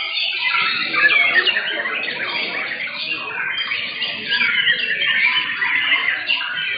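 Several white-rumped shamas (murai batu) singing at once in competition cages, a dense, unbroken tangle of overlapping fast whistles, chirps and harsh notes.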